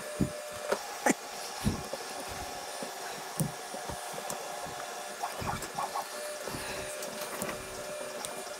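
Plastic trim strip being pressed into the grooves of a 3D printer's aluminium extrusion frame: scattered light taps and knocks over a steady mechanical hum.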